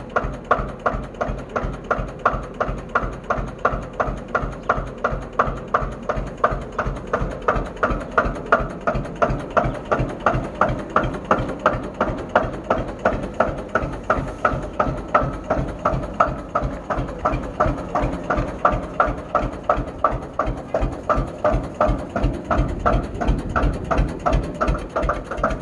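Single-cylinder hot-bulb tractor engine of the Lanz Bulldog type running with a steady, even beat of several thumps a second.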